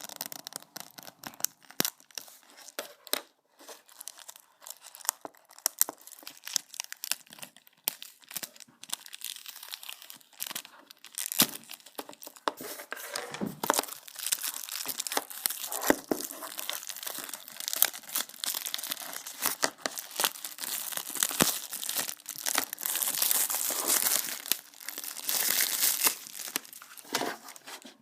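Plastic wrapping being torn and peeled off a new Blu-ray case: crackling and crinkling, sparse at first, then denser and louder from about halfway through.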